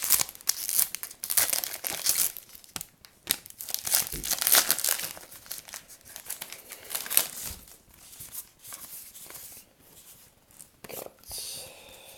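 A foil trading card pack wrapper being torn open and crinkled: a dense run of ripping and rustling strokes for about eight seconds, then sparser rustling.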